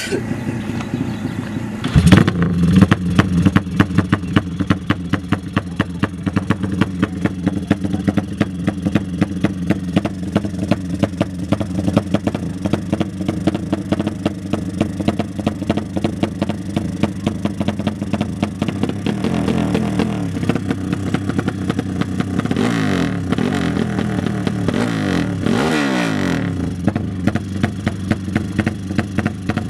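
Modified racing motorcycle engines running loud and revving. They give a rapid, even pulsing that jumps in loudness about two seconds in. Engine pitch falls away several times in the later part.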